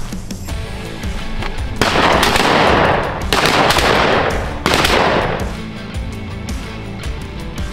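Three shotgun blasts about a second and a half apart, each trailing off in a long echo, over background guitar music.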